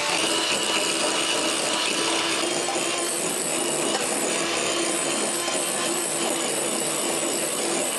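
Electric mixer running at a steady speed, whisking egg whites into stiff peaks.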